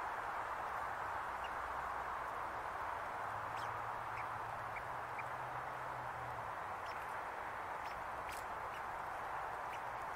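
Steady outdoor hiss with faint, scattered clicks and ticks from a red squirrel gnawing the scales off a conifer cone, more frequent in the second half.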